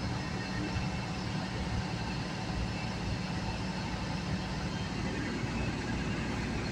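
City transit bus running on the road, heard from inside the passenger cabin: a steady low engine hum with road noise.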